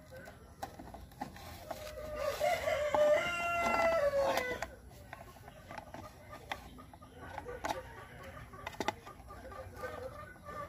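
A rooster crowing once, one long call of about two and a half seconds that holds its pitch and drops at the end, with scattered light clicks around it.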